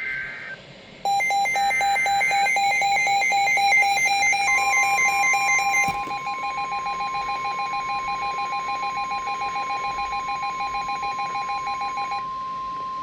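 NOAA Weather Radio alert sequence. It opens with short screeching SAME data bursts. About a second in, a weather radio receiver's alarm starts beeping rapidly, about four beeps a second. From about 4.5 s a steady 1050 Hz warning alarm tone sounds along with it, announcing the next warning.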